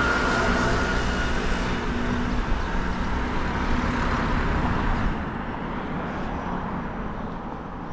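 A car going by, its engine and tyre noise a steady rush that fades away from about five seconds in, leaving quieter street background.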